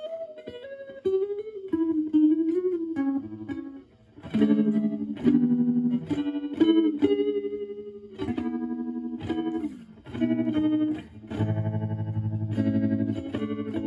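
Clean electric guitar, a Stratocaster with HSH pickups, played through a Joyo JF-09 analog optical tremolo pedal into a Marshall Valvestate amp on its clean channel. The tremolo is at maximum rate with intensity at 4, so the volume throbs fast and evenly. Single-note lines give way to chords about four seconds in.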